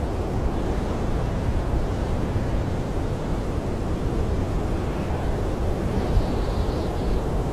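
Blizzard wind howling steadily against a camping tent, heard from inside as a deep, even rush of noise.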